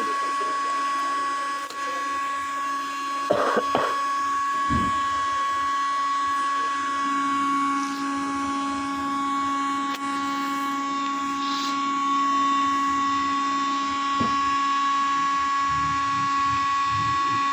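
Small electric power tool motor running at a steady high-pitched whine, with a lower hum joining partway through and a few brief knocks early on.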